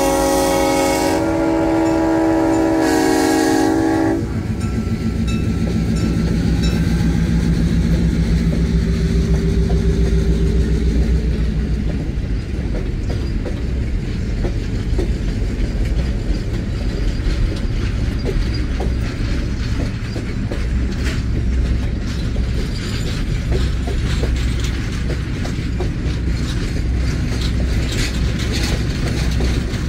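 Passenger train passing: a locomotive air horn sounds a chord that ends about four seconds in, then a steady low engine drone carries on to about eleven seconds. After that, the rumble and clickety-clack of the passenger cars' wheels rolling over the rail joints.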